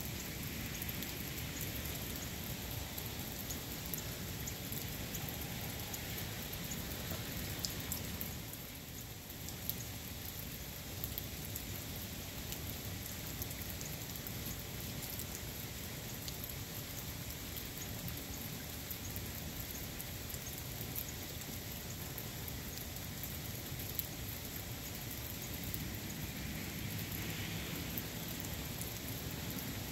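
Steady rain falling, an even hiss with many single drops ticking through it.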